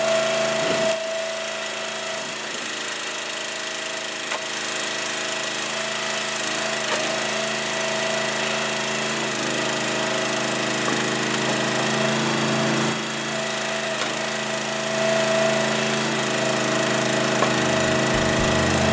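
Huskee 22-ton log splitter's gasoline engine running steadily while the splitter works through logs, with occasional faint cracks of wood. The engine is running fine and does not bog down on the big logs.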